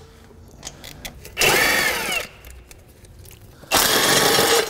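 A handheld power tool run in two bursts of about a second each, its motor speeding up and winding down, backing out the exhaust manifold fasteners.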